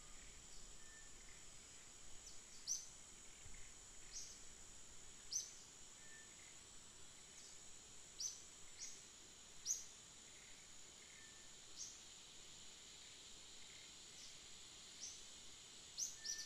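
Faint forest ambience: a steady high-pitched insect buzz, with short, sharp, high chirps breaking in every second or two.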